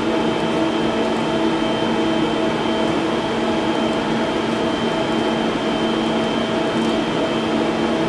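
Steady whirr and hum of a cinema projection booth's running projector cooling fans, several constant tones over an even rush of air.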